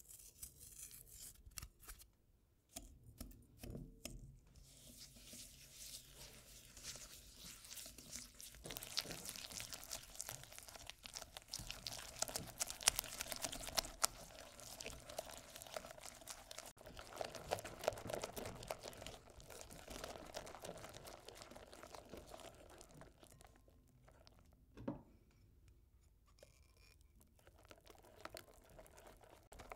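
Wire whisk beating egg yolks and sugar in a glass bowl, its wires scraping and clicking against the glass in quick continuous strokes as the sugar dissolves and the mixture turns pale and creamy. The whisking pauses briefly near the end, with a single knock.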